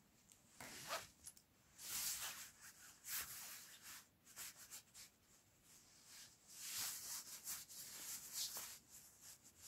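Soft rustling in several short bursts about a second long, with quieter gaps between.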